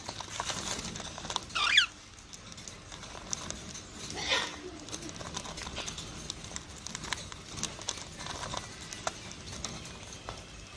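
Pet cockatiels in a cage: one loud whistled call about two seconds in and a second, shorter call about four seconds in, over scattered small ticks and pattering.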